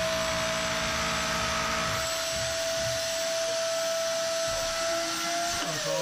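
Vacuum cleaner running with its hose held up at a ceiling opening to suck up the dust of the air-conditioner installation, a steady rushing noise with a single steady whine. Near the end the whine starts to drop in pitch as the motor winds down.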